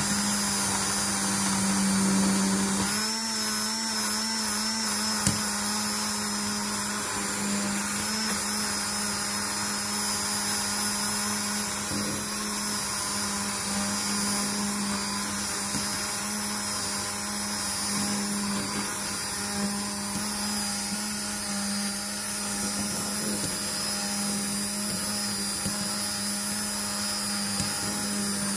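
Electric immersion blender running steadily, blending béchamel sauce in a stainless steel pot; a continuous motor whir.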